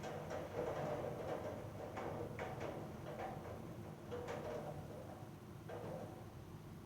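Autumn rain on a roof: a steady patter with irregular single drops tapping loudly every second or so.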